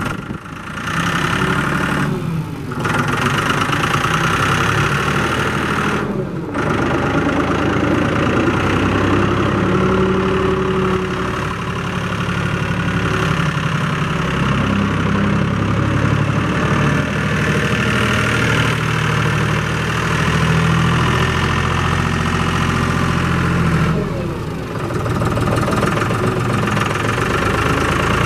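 John Deere utility tractor's diesel engine running as the tractor is driven slowly around. The engine note shifts a little in pitch with the throttle and dips briefly three times.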